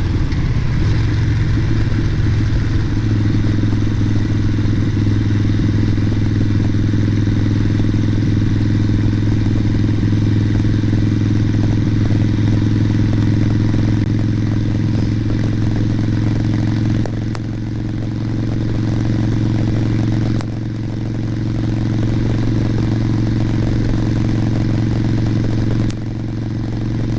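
2011 Harley-Davidson Sportster Nightster's air-cooled V-twin engine running steadily at cruising speed, picked up by a helmet-mounted microphone with a dead-cat windscreen, with wind rushing over it. The engine sound drops a little a few times in the second half.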